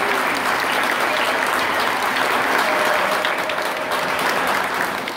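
Audience applauding steadily after a drumline performance ends, the clapping easing slightly near the end.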